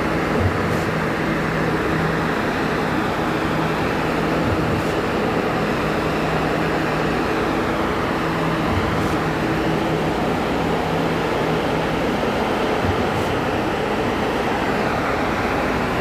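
Steady running drone of concrete-pouring machinery (pump and vibrators) at a slab pour, with a low hum that fades out about two-thirds of the way through.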